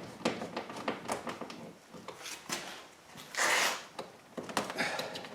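Small irregular clicks and knocks of a hand tool and plastic door trim as T20 Torx screws are tightened on a truck door, with a brief scraping rustle about three and a half seconds in.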